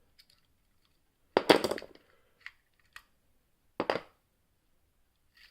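Metal clicks and clatter of homemade lever-lock picks and a tensioner being drawn out of an opened brass Squire 770 lever padlock. A quick rattle of sharp clicks comes about one and a half seconds in, then two small ticks, then another sharp clack near four seconds.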